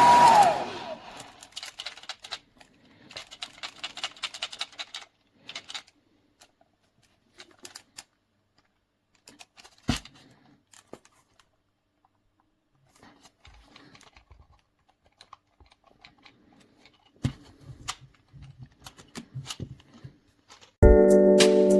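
A hair dryer switches off in the first second, its whine dropping in pitch as it winds down. Then come scattered light clicks, taps and rustles of handling, with one sharper knock near the middle. Music starts just before the end.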